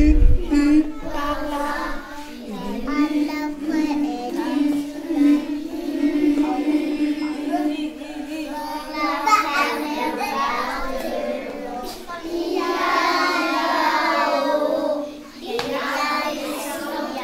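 Young children singing a song together, with a steady held note underneath.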